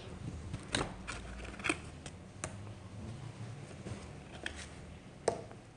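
Small objects being handled and moved by hand: a handful of light, scattered clicks and taps over a faint background.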